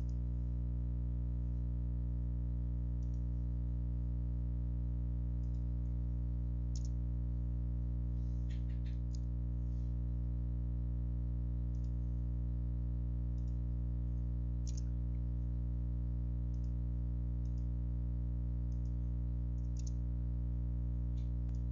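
A steady low hum with a stack of even overtones runs throughout, with a dozen or so scattered single computer-mouse clicks as the drawing is worked on.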